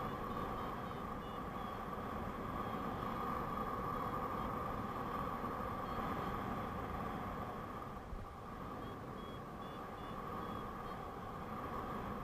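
Steady rush of wind over the microphone in paraglider flight, with short high beeps from a flight variometer, a run of them at the start and another about three quarters of the way through.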